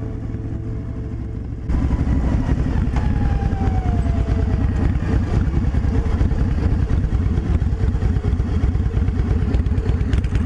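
V-twin engine of a Panhead-style Captain America chopper running on the road, with a rapid, steady exhaust beat. It cuts in sharply about a second and a half in.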